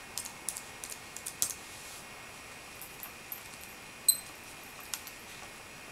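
Computer keyboard keys clicking as a web address is typed: a quick run of keystrokes in the first second and a half, then scattered single clicks. A short, high electronic beep about four seconds in.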